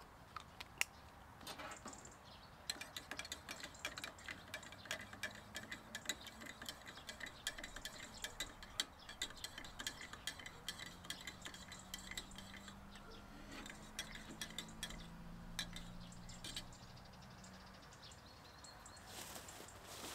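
Metal teaspoon clinking against the inside of a ceramic coffee cup while a sugar cube is stirred in: a quick, light run of clinks lasting about ten seconds.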